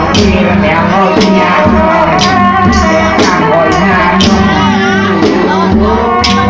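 Live music for a mamuot spirit-medium dance: drum strikes about once a second over a steady drone, with a wavering melody line.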